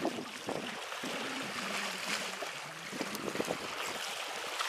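Small waves washing onto the shore, with wind on the microphone. A faint low hum comes and goes in the middle.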